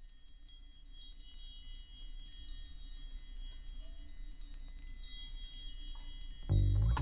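Chimes ringing on a music recording, many high tones overlapping and slowly swelling in. About six and a half seconds in, the band enters loudly with deep bass notes.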